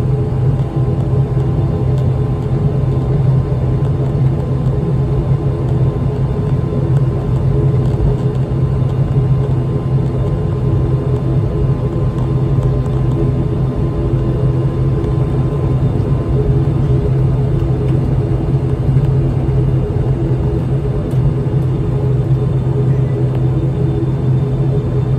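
ATR 42-500 turboprop's Pratt & Whitney PW127E engine and six-bladed propeller running at taxi power, heard from inside the cabin beside the propeller: a loud, steady low drone with a hum over it.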